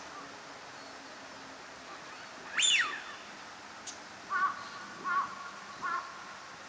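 Bird calls: one loud, sharp call sliding down in pitch about two and a half seconds in, then three short, lower calls evenly spaced a little under a second apart.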